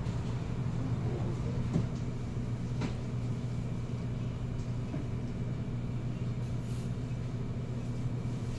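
Steady low rumble and hum of a vehicle cabin while driving, with a couple of faint knocks.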